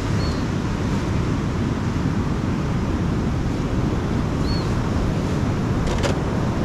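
Surf breaking on a beach with wind on the microphone: a steady, even noise, heaviest in the deep end, with a couple of faint clicks about six seconds in.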